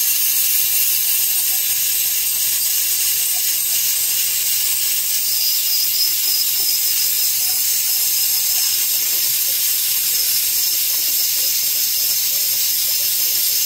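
Compressed air hissing steadily from an air nozzle aimed at a lawn mower's fuel pump, blowing fuel and debris out of the pump and its line fittings.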